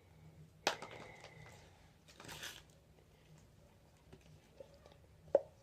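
Plastic glue bottle being handled and checked: a sharp click about a second in, a short rasping rustle a moment later, and a light knock near the end.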